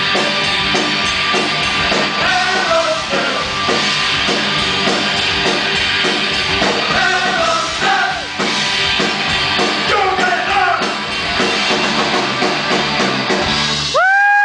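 Punk rock band playing live, with drums, electric guitars and a male voice singing. The music stops abruptly near the end and a loud sliding tone follows.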